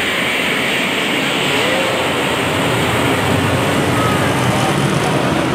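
Busy exhibition-hall din: a crowd murmuring over a constant rushing noise, steady throughout.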